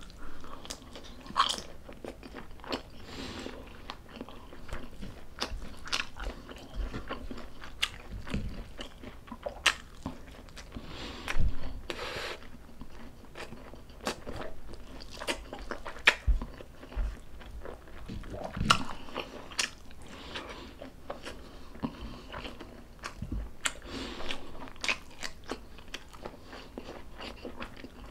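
A person chewing and biting into food up close, with irregular crunches and wet mouth clicks.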